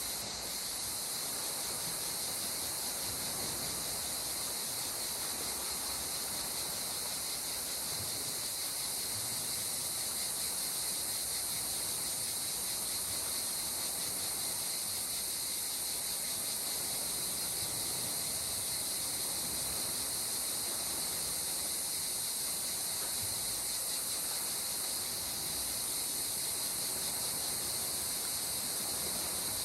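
A steady, high-pitched chorus of insects over a soft, continuous wash of sea water.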